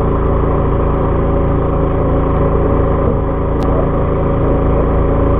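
Fishing boat's engine running steadily, with a brief click about three and a half seconds in.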